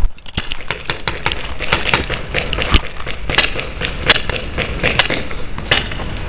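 Paintball markers firing during a game: many sharp pops in quick, irregular succession, thickest in the second half.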